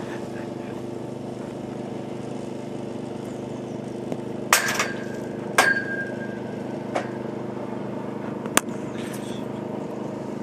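A motor running steadily, with a few sharp knocks about halfway through; two of them, about a second apart, ring on briefly with a short high metallic tone, and one more sharp click comes later.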